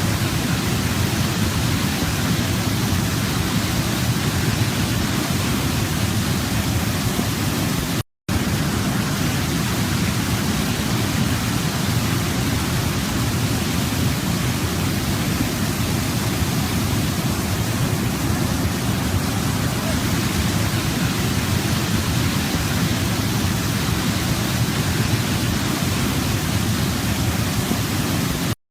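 Waterfall: water cascading and rushing in a steady, even roar, strongest in the low range. It cuts out briefly about eight seconds in and again at the very end.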